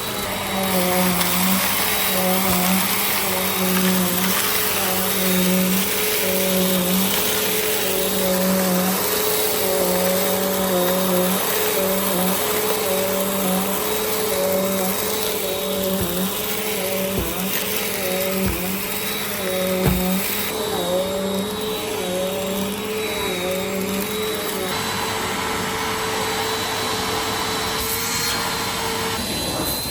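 Bissell CleanView compact vacuum cleaner running steadily, its motor pitch dipping and rising as the load changes while it cleans. A few low knocks come about two-thirds of the way through.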